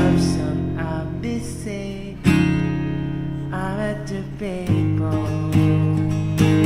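Acoustic guitar strumming chords for a pop-song cover, with a new chord struck every second or two and a voice singing over it at times.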